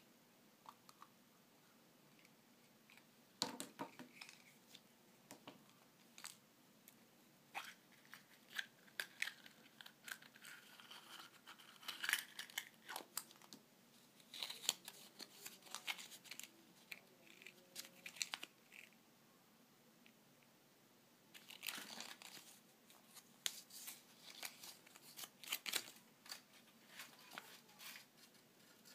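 Hands cracking a hollow milk-chocolate surprise egg in two, then handling the plastic toy capsule from inside and unfolding its folded paper leaflet. Scattered light cracks, clicks and paper crinkling, with a short quiet spell about two-thirds of the way through.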